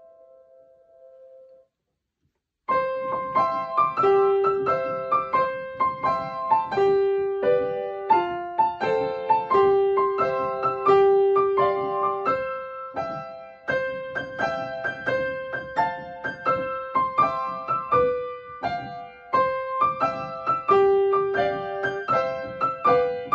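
Upright piano: a faint held chord dies away, then about a second of silence. From about three seconds in, a bright, lively melody with many repeated notes is played over a steady accompaniment.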